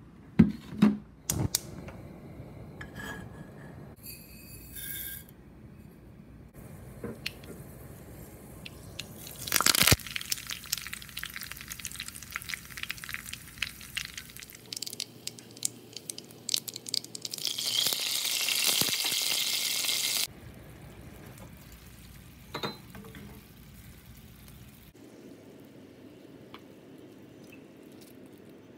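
Mustard seeds, sesame seeds, curry leaves and green chillies sizzling and crackling in hot oil in a small pan for a tadka. A loud burst of sizzling comes about ten seconds in, then scattered popping, then a louder steady hiss for a few seconds that cuts off suddenly. A few sharp clinks sound near the start.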